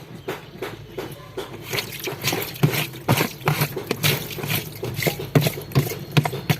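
Water splashing and dripping inside a refrigerator, in irregular small splashes that grow busier and louder about two seconds in. It is water pooling because the ice-clogged drain hole will not let it through.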